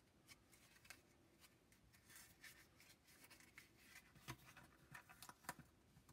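Faint rustling and a few small ticks of cardstock and painter's tape being handled and pressed by hand, otherwise near silence.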